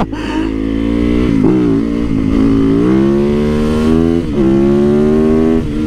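Single-cylinder four-stroke engine of a Yamaha YZ450FX supermoto accelerating under way. Its pitch climbs as it pulls, dips briefly about a second and a half in and again about four seconds in, as at gear changes, then holds steady.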